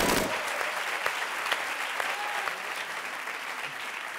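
Studio audience applauding after a joke, the clapping slowly dying down, with a brief low thump at the very start.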